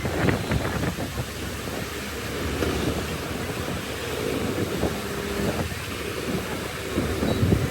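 Bulldozer diesel engine running steadily with irregular knocks and rattles, and wind buffeting the microphone.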